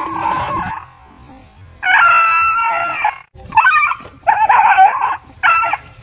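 A dog crying out at a toy tiger pushed at it on a pole: a loud cry cuts off under a second in, then after a short pause one long yelping howl, followed by three short yelps.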